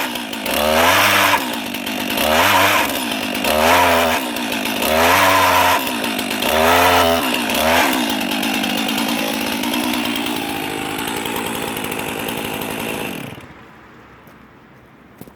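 Stihl MS 362 two-stroke chainsaw engine driving a Bristol earth auger, revved up and let back down about every second and a half, five times over. It then runs steadily at lower speed, its pitch slowly sinking, and stops about 13 seconds in.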